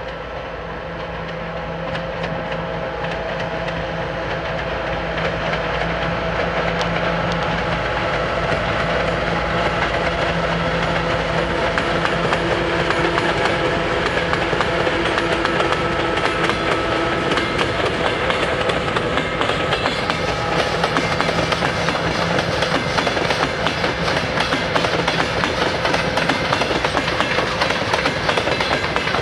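Two ST44 (M62) diesel locomotives, each with a two-stroke V12 engine, working hard as they pull a heavy freight train past, their steady engine drone growing louder. About two thirds through, the clatter and rattle of the wagons' wheels over the rail joints takes over as the train rolls by.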